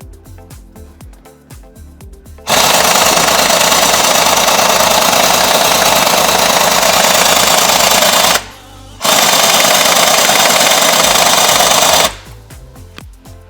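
Pneumatic impact wrench hammering on bolts in two long runs, about six seconds and then about three, with a short pause between. Background music plays under it.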